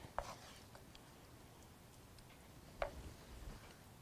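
A few light taps of a wooden spoon against a nonstick skillet as sautéed peach topping is scooped out, one clear tap just after the start and another about three seconds in.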